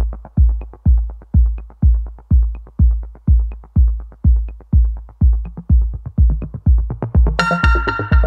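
Electronic intro music: a steady kick drum at about two beats a second with light ticks, and a fuller synthesizer layer joining near the end.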